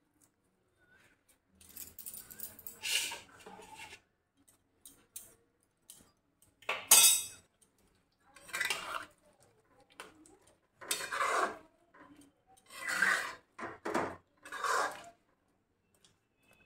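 Metal spatula stirring thick chickpea curry in a metal kadai: scrapes and clinks of metal against the pan every couple of seconds, with one sharp clank about seven seconds in.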